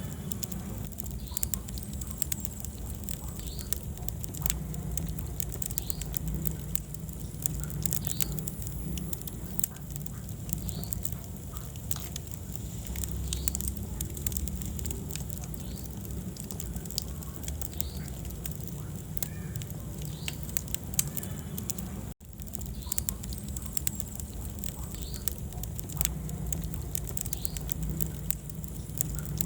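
Wood fire burning in a fireplace: a steady low rumble of flame under frequent small, sharp crackles and pops of burning wood. The sound cuts out for an instant about three-quarters of the way through.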